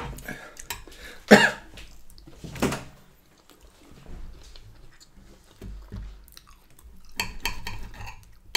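Close-miked eating: chewing, with a knife and fork working on a plate and a run of small cutlery clicks near the end. Two louder sudden sounds stand out, about a second in and just under three seconds in.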